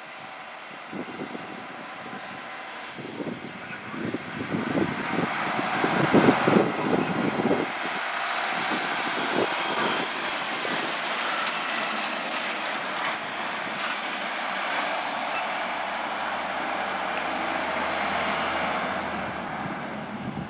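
Fire engine on an emergency run driving past. The engine and road noise build over the first several seconds, are loudest about six seconds in, then hold steady as the truck moves on.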